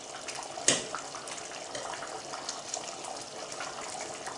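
Thick Jamaican curry chicken sauce bubbling in a pot on the stove, a steady bubbling with many small pops, and one sharp click under a second in.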